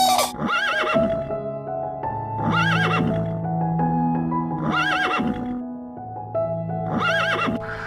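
Horse whinnying about four times, each a short quavering call, over background music.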